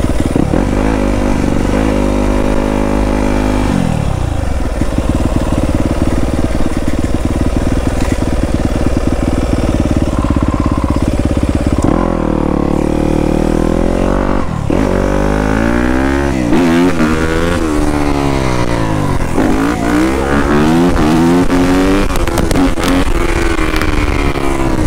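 Yamaha YZ250F dirt bike's 250 cc four-stroke single-cylinder engine running under a rider, its pitch rising and falling again and again as the throttle is opened and closed, more busily in the second half.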